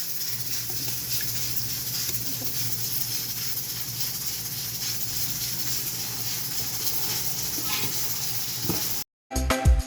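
Food sizzling steadily as it fries in hot oil in a pan, with faint scattered pops. It cuts off abruptly near the end, and music begins.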